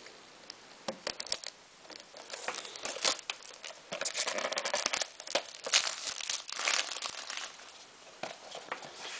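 Clear plastic shrink wrap being torn and peeled off a metal Blu-ray steelbook case, crinkling and crackling in irregular spells with sharp little clicks. It starts about two seconds in and tails off near the end.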